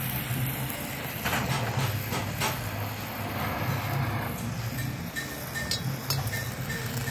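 Gas brazing torch flame hissing steadily as it heats the auger plate and melts brass rod onto carbide teeth, over a low hum, with a few light metallic clicks.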